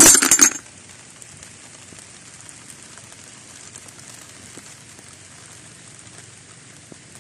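A short loud burst of noise in the first half-second, then faint steady hiss with light scattered crackles.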